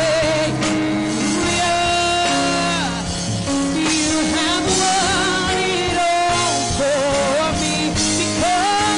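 A woman singing a gospel worship song with wavering vibrato into a microphone, over a live band with sustained chords and drums.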